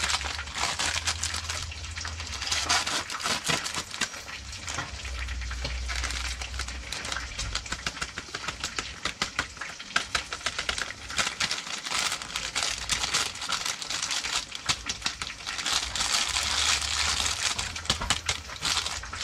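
Chicken frying in hot oil, a dense, steady crackle and spatter of small pops.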